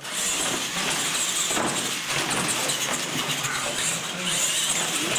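Electric radio-controlled monster trucks racing on a concrete floor: motor whine with high-pitched tyre and drivetrain noise.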